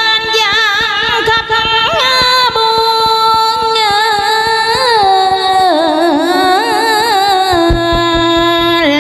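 A woman singing a long, drawn-out melismatic phrase into a microphone in the đờn ca tài tử style: held, wavering notes that step down in pitch about halfway through and settle on a lower held note near the end.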